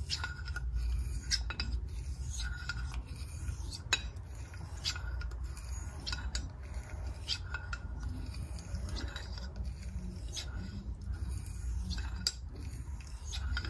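Straight razor blade drawn edge-trailing across a wet 12,000-grit whetstone in repeated finishing strokes: light scraping passes with small clicks, about one a second.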